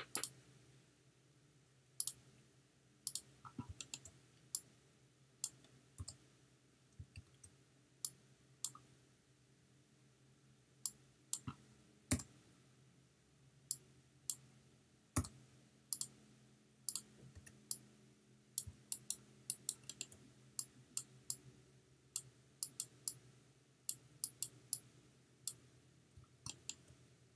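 Irregular, quiet clicks of a computer mouse, single and in quick clusters, over a faint steady hum.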